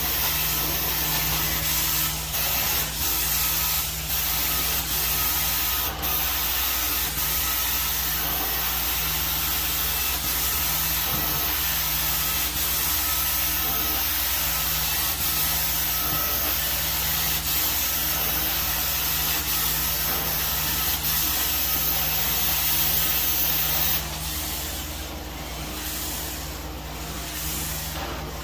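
4-jet lightweight titanium carpet-cleaning wand running: a steady rush of suction and spray hiss over a low hum. About 24 seconds in the sound drops a little and starts pulsing evenly, about once every second and a half.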